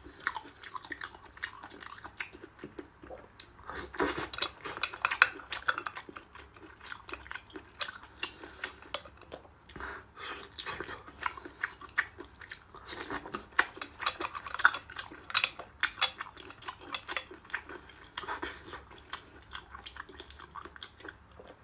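Close-up chewing and biting of abalone in chili sauce: dense, irregular sharp clicks and crackles of a mouth working on chewy shellfish.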